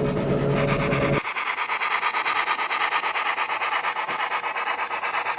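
HO-scale model train running on the layout with a steady low hum that cuts off abruptly about a second in. A fast, even, rasping rhythm carries on after it.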